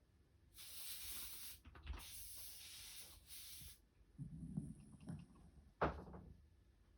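Sleeping Shiba Inu snoring: two long, hissing breaths, then a low rumbling snore about four seconds in, and a short, sharp sound near six seconds.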